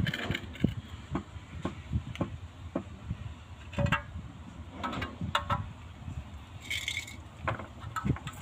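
Scattered light knocks and scrapes of a steel trowel and a clay edge tile being handled as mortar is worked onto the tile and it is pressed against the edge of a tiled concrete slab. There is one brief harsher scrape near the end.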